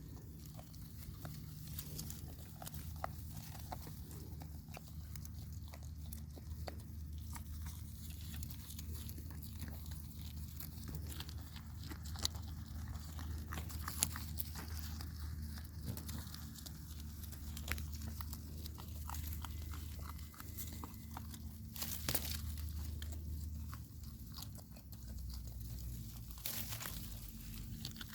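Baby goat biting and chewing beans: a close, continuous run of small crunches and clicks, with a few louder snaps.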